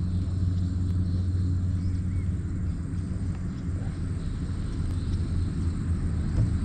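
A motor running steadily, an even low hum.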